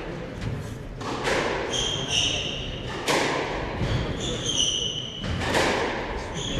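Squash rally: a few sharp hits of the ball about two seconds apart, racket strikes and the ball thudding off the walls, with short high squeaks of court shoes on the wooden floor between them.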